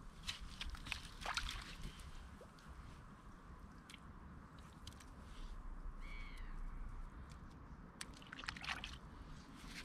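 Faint squelching and sloshing of wet sand and water as a hand breaks open sand in a water-filled lugworm hole, over a steady low wind rumble. A bird calls once about six seconds in.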